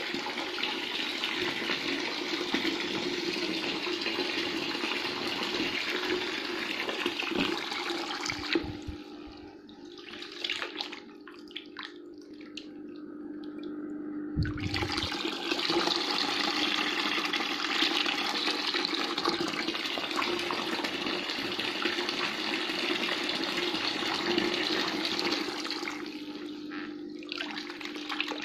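Water from a Kiyosaki PSP2400 submersible pump's outlet hose splashing hard into a half-full bucket, over a steady hum. The splashing falls away for about six seconds about a third of the way in, with a dull knock as the pump is handled under water, then comes back strongly.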